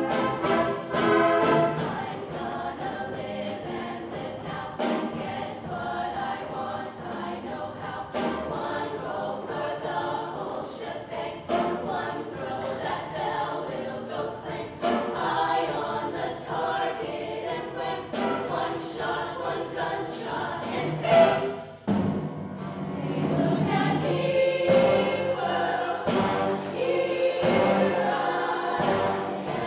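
A show choir singing in full harmony over instrumental accompaniment with drum hits, heard from the audience. Near the end the music briefly drops away, then comes back fuller.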